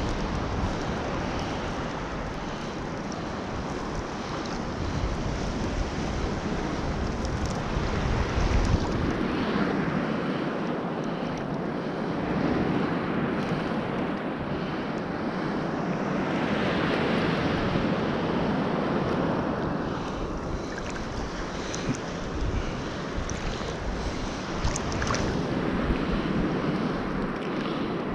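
Sea surf washing on the shore in swells that rise and ease, with wind buffeting the microphone for roughly the first nine seconds.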